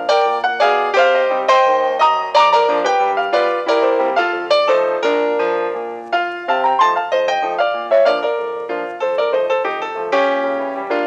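Background piano music: a run of quick struck piano notes, several a second, each ringing and fading.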